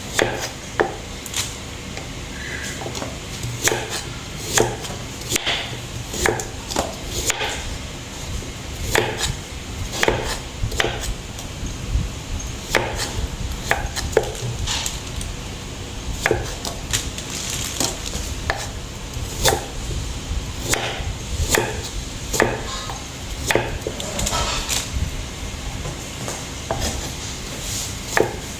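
Kitchen knife chopping on a cutting board: irregular sharp strokes, about one or two a second, going on steadily.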